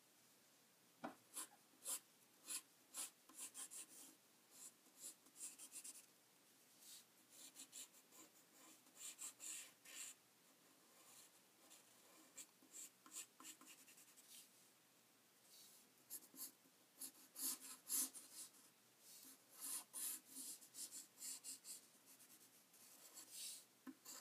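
Pencil drawing on paper: the pencil tip scratches faintly in many short strokes, a few at a time with brief pauses between.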